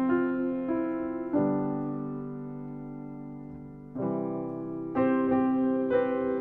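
Background piano music: slow chords struck and left to ring and fade, with a longer held chord near the middle and three quicker chords near the end.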